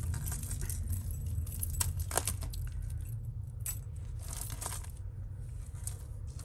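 Costume jewellery clinking and jangling as hands sort through a pile of metal chains, bangles and beads: a run of small metallic clicks and taps, loudest about two seconds in, over a low steady hum.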